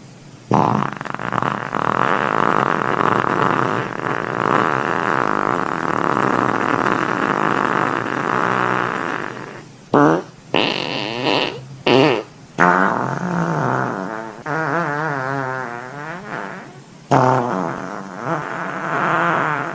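A string of fart sound effects. A long sputtering fart runs for about nine seconds, then come three or four short blasts, then two longer farts with a wobbling, wavering pitch.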